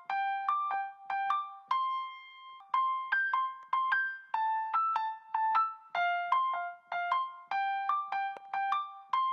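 Background music: a simple piano melody played one note at a time, about three notes a second, each note fading before the next.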